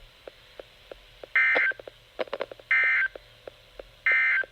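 NOAA Weather Radio SAME digital data bursts: three short, identical squawks of warbling two-tone data about a second and a half apart, the end-of-message code that closes the tropical storm warning. Faint radio crackle clicks between the bursts.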